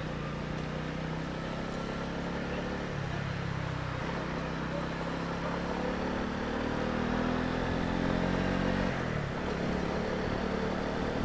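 Honda CB125R's single-cylinder engine running at low speed, its pitch rising gently and then dropping about nine seconds in as the bike eases off.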